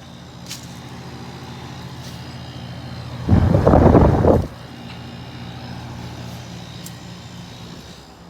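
An air conditioner running with a steady low hum. About three seconds in, a loud rushing burst lasts just over a second, then the hum continues.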